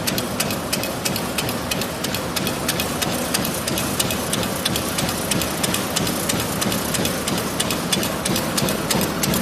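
Disposable-glove making machine running steadily, with a rapid, regular clicking of about four strokes a second over a continuous mechanical hum.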